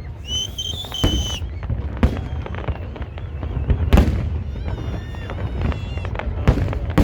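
Fireworks going off: a continuous low rumble of distant bursts with a sharp bang every second or two, and a steady high whistle in the first second or so.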